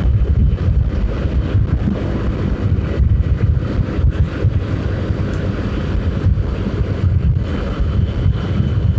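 Wind buffeting the microphone of a moving motorcycle, a steady gusty rumble with the bike's engine and road noise underneath.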